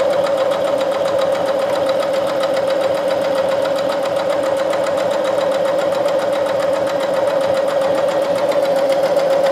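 Domestic electric sewing machine stitching a long straight side seam through layers of coat fabric at a steady speed: an even motor hum with a rapid, regular stitching rhythm.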